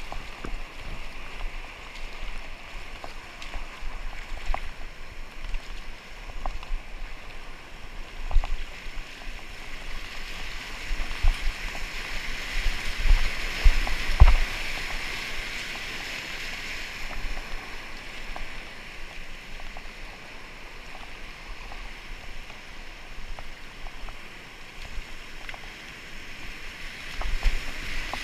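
Floodwater rushing around a kayak, with scattered splashes and knocks; the rush swells for a few seconds about halfway through.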